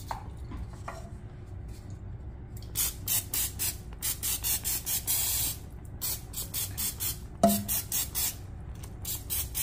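Aerosol butter cooking spray hissing out of the can in many short squirts, about three a second, with one longer squirt about five seconds in. One sharp clunk about seven and a half seconds in.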